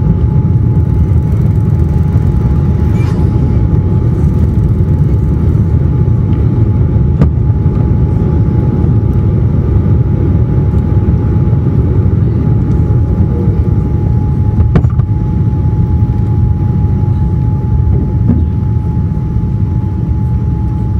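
Inside the cabin of a Boeing 787-9 at takeoff power during liftoff and initial climb: a loud, steady low rumble of the engines and rushing air, with a thin steady whine above it.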